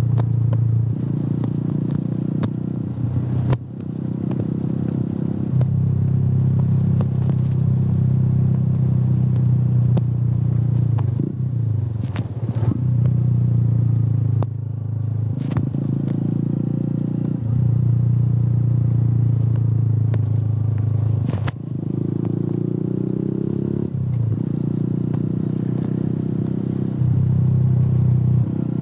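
Suzuki Gixxer motorcycle engine running through a Yoshimura aftermarket exhaust while being ridden. The exhaust note holds steady in stretches and several times drops away and picks up again as the throttle changes, with occasional clicks.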